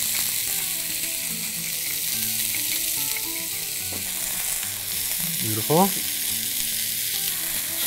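Chicken breast pieces and spicy sausage sizzling steadily in an oiled paella pan on high heat, hot enough that the pan is starting to smoke.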